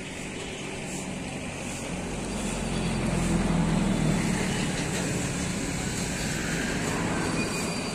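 Low vehicle rumble that swells to its loudest about three to four seconds in, then eases to a steady drone.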